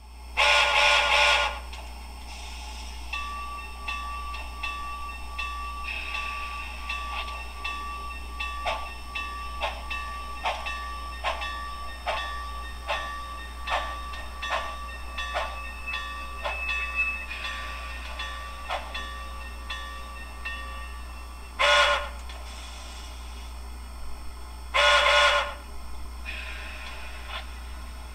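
Sound-decoder steam locomotive (SoundTraxx Tsunami2) in an HO model: one whistle blast near the start, then slow, even exhaust chuffs at a little over one a second as the engine moves at crawling speed. Near the end come two short whistle toots, the signal for moving forward.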